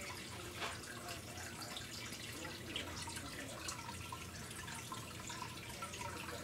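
Water in a turtle tank trickling and dripping steadily, over a low steady hum.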